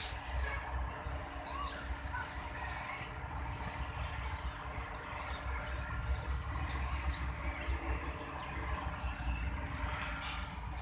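Distant low rumble of an approaching Pakistan Railways AGE-30 diesel-electric locomotive hauling a passenger train, heard under steady outdoor background noise. A few bird chirps sound over it, and there is a short hiss near the end.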